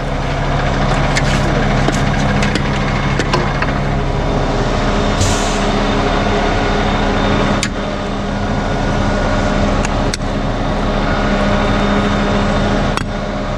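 Ready-mix concrete truck running steadily at raised engine speed during the pour. A short air hiss comes about five seconds in, and a few sharp knocks sound now and then.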